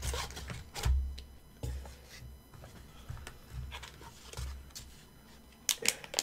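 Cardboard packaging and an anti-static plastic bag being handled: scattered soft scrapes, rustles and knocks, with a quick run of sharp crinkling clicks near the end.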